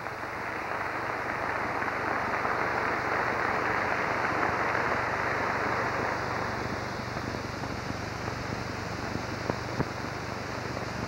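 Audience applauding, swelling over the first couple of seconds and then slowly dying away.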